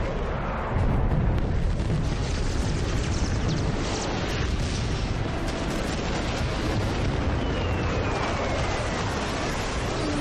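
Sound effects of a low-level jet attack: a continuous heavy rumble of jet noise and explosions that gets louder about a second in. Near the end a single whistle falls slowly in pitch.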